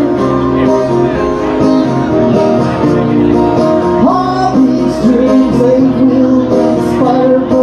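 A man singing live into a microphone while strumming a twelve-string acoustic guitar.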